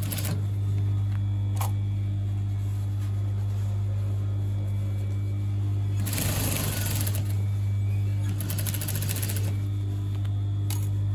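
Industrial lockstitch sewing machine stitching a corduroy hem in two short runs, about six and eight and a half seconds in, over a steady low hum. A few light clicks fall between the runs.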